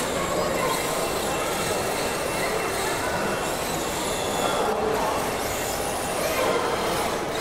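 Radio-controlled drift cars' electric motors whining, rising and falling in pitch as the cars accelerate and slide, over a crowd's murmur.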